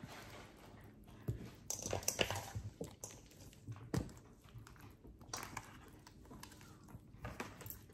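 Faint, irregular wet handling sounds of hands stuffing a whole raw salmon: squishing, rustling and small clicks, with a louder rustling burst about two seconds in and a sharp click about four seconds in.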